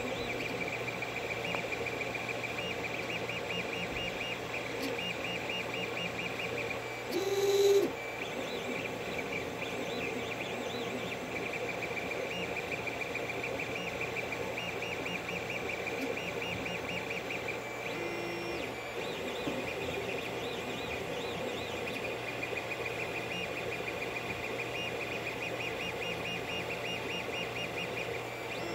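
Creality CR-10 3D printer running mid-print: its stepper motors make runs of rapid, high, chirping pulses over a steady hum. A brief louder sound comes about seven and a half seconds in.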